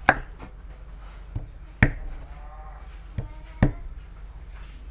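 Cleaver chopping ripe areca nuts on a wooden chopping board: three hard chops under two seconds apart, with lighter knocks between them.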